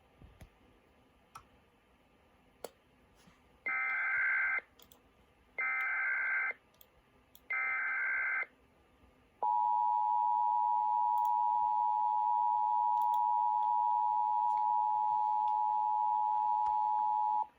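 Emergency Alert System signal: three one-second bursts of SAME digital header tones about two seconds apart, then the steady two-tone attention signal held for about eight seconds before it cuts off. It marks the start of an Amber Alert broadcast.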